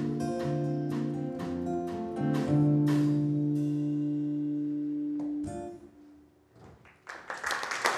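A small band with acoustic guitar plays the closing bars of a song: a few strummed chords, then a final chord held and ringing until it stops about five seconds in. After a brief lull, audience applause begins near the end.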